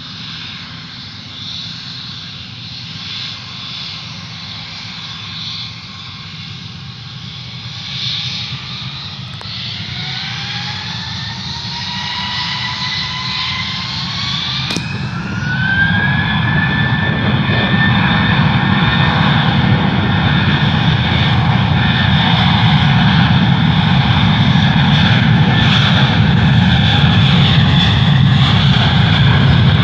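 Jet airliner's engines spooling up: a whine rises in pitch over several seconds, then holds steady at high power as a heavy rumble grows louder.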